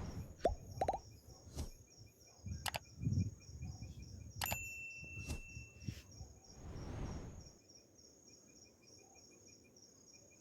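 Insects chirping in steady, evenly repeating pulses. Sharp clicks and low rumbling noises come over them for the first seven seconds or so, then stop.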